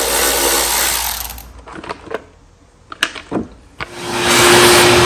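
Compressed-air blow gun hissing in two long blasts while the lawn tractor's engine is blown clean, the second blast louder and with a steady whistle in it. A few clicks and knocks come between the blasts.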